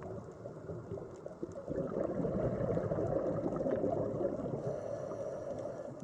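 Underwater bubbling and gurgling, swelling about two seconds in and easing off near the end.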